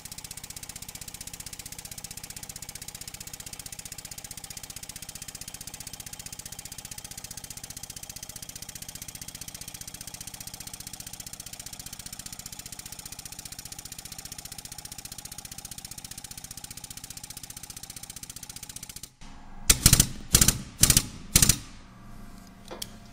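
Powered shop press running its pump with a steady, rapid mechanical chatter as the ram presses a stepper motor's shaft out through its armature, with no straining: the shaft is moving easily. The pump stops suddenly about nineteen seconds in, followed by a few sharp metal clanks.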